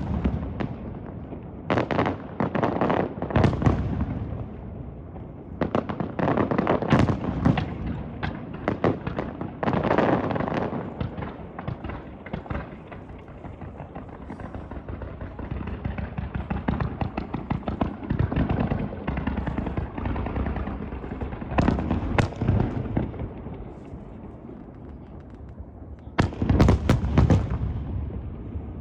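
Fireworks display: shells bursting in volleys of sharp bangs with crackle and rumbling tails, heaviest in clusters a few seconds in, around the middle and near the end, with a quieter stretch between.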